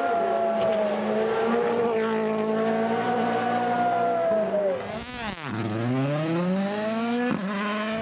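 Rally car's turbocharged four-cylinder engine at high revs, held fairly steady. About five seconds in the pitch drops sharply, then climbs again as the car accelerates hard, with a gear change near the end.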